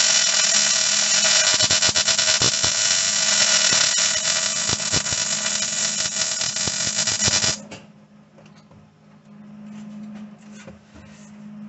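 Wire-feed (MIG) welder arc crackling steadily as a bead is run on the sheet-metal floor patch, cutting off suddenly about seven and a half seconds in. After that only a faint low hum remains.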